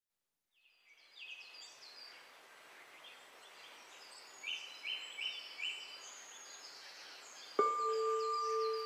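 Birds chirping over a steady ambient hiss, fading in after a brief silence. Near the end a steady held tone starts suddenly and becomes the loudest sound.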